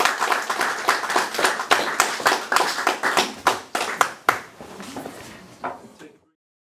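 Audience applauding, the claps thinning out and growing quieter, then cut off abruptly about six seconds in.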